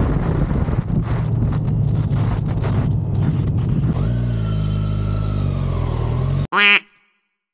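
Kawasaki Ninja 1000's inline-four engine running under wind buffeting on the microphone while riding, then settling to a steady idle about four seconds in. Near the end comes a short, loud blip rising in pitch, after which the sound cuts off abruptly.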